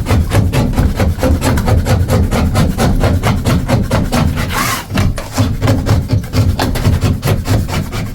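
A 6-inch drywall knife scraping along a plaster cornice line in rapid, repeated strokes, several a second, to flatten and clean the edge.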